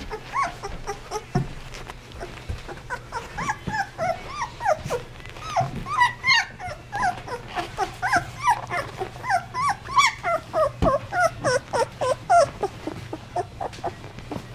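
A litter of 16-day-old Basset Hound puppies whimpering and squeaking: many short high calls, each rising and falling in pitch, overlapping several to a second, sparse at first and busiest from about three seconds in until near the end.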